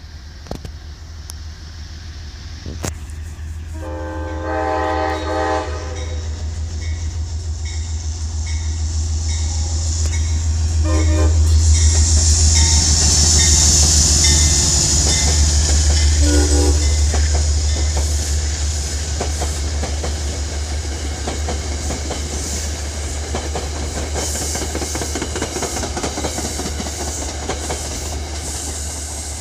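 Metro-North commuter train passing close by, sounding its horn: one long blast about four seconds in, then short blasts at about eleven and sixteen seconds. Under the horn, a steady low drone and the wheel clatter on the rails grow loudest as the locomotive passes and ease off as the coaches roll by.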